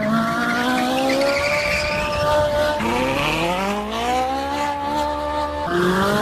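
Ferrari 458 Spider's V8 accelerating hard, its pitch climbing through the revs. It upshifts twice, the pitch dropping sharply about three seconds in and again near the end before climbing again.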